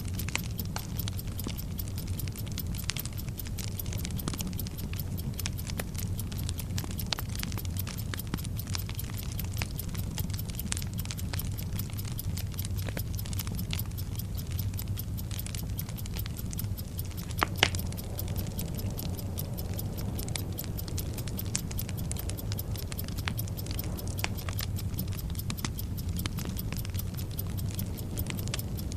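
Bomb-timer sound effect: a burning fuse crackling and sputtering over a steady low rumble, with a fast, even clock ticking. There is one sharper crack about halfway through.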